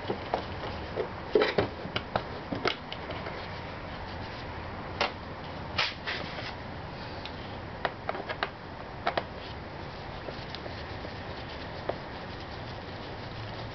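Irregular small clicks and taps of a Phillips screwdriver and loose screws against a scooter's plastic body cover as its screws are taken out. The taps come in clusters, most of them in the first few seconds and again around the middle, over a steady hiss.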